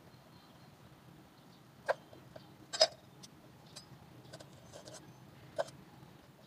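Cleaver chopping ginger on a wooden cutting board: a few sharp knocks of the blade on the board, the loudest about three seconds in, with fainter taps between.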